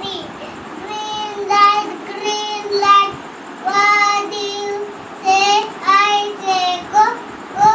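A young boy singing a song unaccompanied, a string of held notes with short breaks between phrases.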